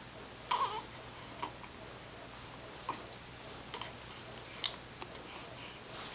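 A small child hiccupping: one clear hiccup with a little voice in it about half a second in, then fainter hiccups roughly once a second.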